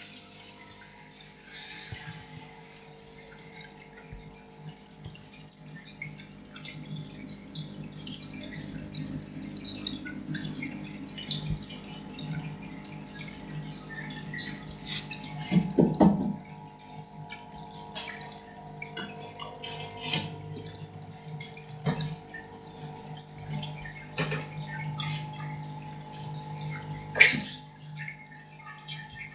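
Aquarium water trickling and dripping over a steady mechanical hum, with scattered small taps and knocks: a louder cluster about halfway through and a sharp click near the end.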